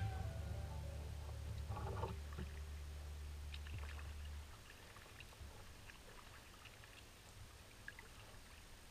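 Kayak paddle dipping into the water, with faint drips and small splashes. A low steady hum runs underneath and stops about halfway through.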